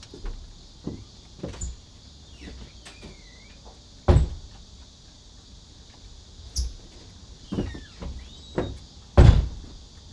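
A series of irregular dull thumps and knocks, about seven, the loudest about four seconds in and near the end, over a steady high hiss. Two faint, short, high chirps come in between.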